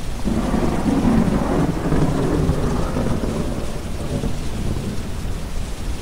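A roll of thunder over steady rain and a deep brown-noise hiss. The thunder comes in suddenly about a quarter second in, is loudest over the next few seconds, and fades away near the end.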